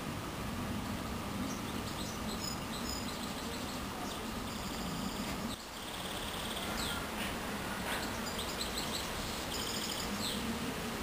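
Small birds singing in the background: repeated high chirps and short rapid trills over a steady hiss of ambient noise.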